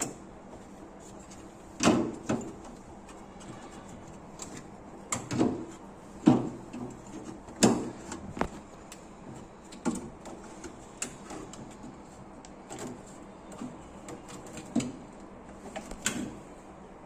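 Scattered knocks and clicks of hand work with tools and parts, about a dozen irregular taps with quiet gaps between them.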